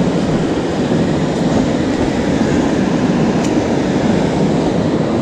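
Ocean surf washing up a sandy beach, a steady unbroken rush, mixed with wind on the microphone.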